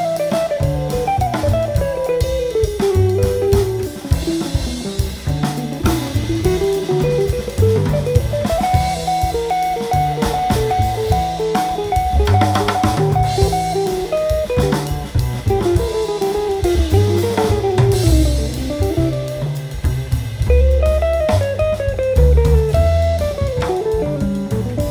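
Instrumental jazz quartet of tenor saxophone, guitar, acoustic bass and drum kit playing. A single lead line winds up and down over walking bass and drums, holding one long steady note about a third of the way in.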